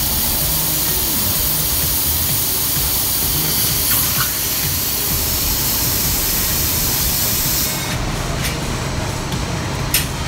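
Plasma cutter torch blowing a steady hiss of compressed air with the arc off, the post-flow that cools the torch after a cut, which cuts off suddenly about eight seconds in. A few light clicks follow, then a knock near the end as the cut steel piece is lifted off the sheet.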